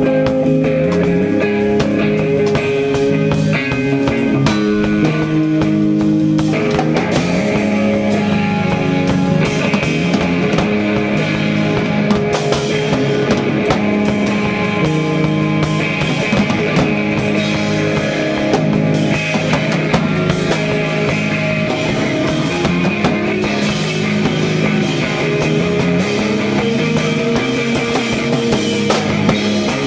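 Rock band playing live: electric guitar, bass guitar and drum kit.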